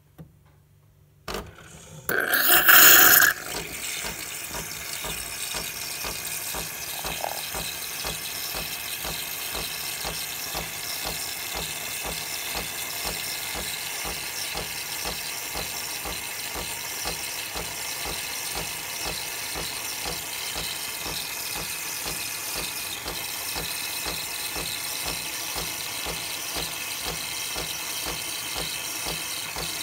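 Nespresso Lattissima Touch capsule machine frothing milk into a glass: two short clicks, then a loud spurt of steam about two seconds in, after which it runs steadily with a hiss over a fast, even pulsing from the pump.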